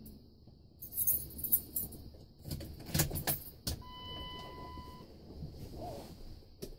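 Keys jangling and clicking at the ignition of a Dodge Ram pickup, followed about four seconds in by a steady electronic warning chime that lasts about a second as the key is turned on.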